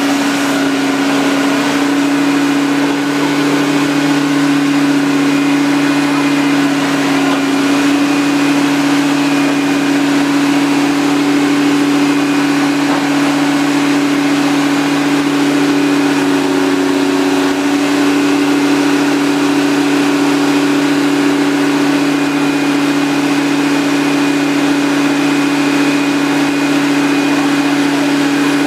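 Water well drilling rig's machinery running steadily under load while drilling, a constant engine drone holding one pitch throughout.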